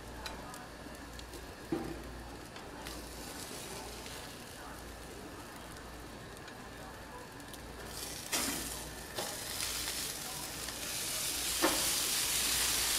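Blacktip shark steaks sizzling on a gas grill's grates, a steady hiss, with a few sharp clinks and scrapes of a metal spatula against the grill. The hiss grows louder over the last couple of seconds.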